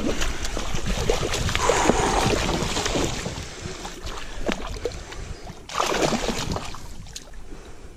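Hooked bass thrashing and splashing at the surface beside a kayak as it is played in on the line, loudest over the first few seconds, with another loud splash about six seconds in as it comes to the hull.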